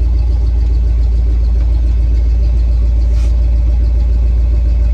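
Classic Ford pickup truck's engine running at low speed, heard from inside the cab: a loud, steady, deep rumble while the truck is backed slowly into place.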